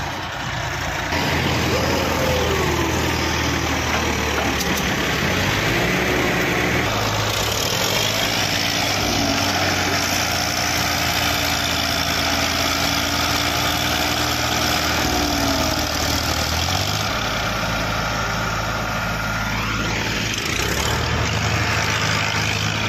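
Diesel tractor engines of a New Holland 3600 and a Farmtrac 60 running under load, hauling a paddy-laden trolley bogged in a soft field. The engine pitch falls a couple of seconds in, rises again around seven seconds, drops near sixteen seconds and climbs once more near the end as the throttle is worked.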